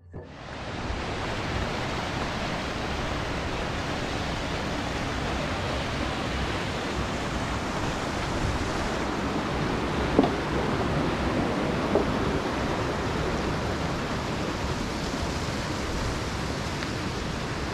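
Steady rushing of a fast river, with two short knocks about ten and twelve seconds in.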